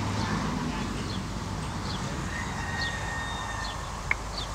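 Outdoor ambience: a steady low rumble with small birds chirping briefly, a held whistle-like tone for about a second past the middle, and one sharp click near the end.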